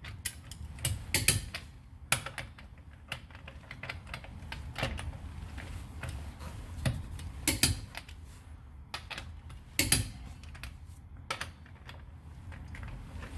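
Click-type torque wrench on the wheel's lug nuts, set to 80 ft-lb, with sharp clicks spaced irregularly a second or two apart, each click the sign that a nut has reached its torque.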